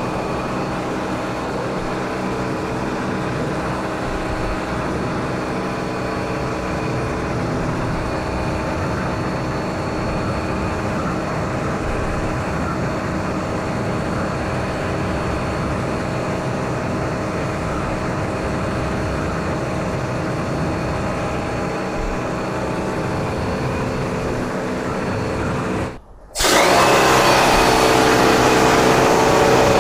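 Bosch electric high-pressure washer running steadily with its motor humming under the hiss of the water jet. About 26 seconds in the sound cuts out briefly, then resumes louder.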